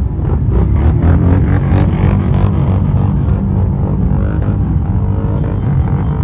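Many motorcycle engines rumbling together at low speed as a procession of bikes rides slowly past.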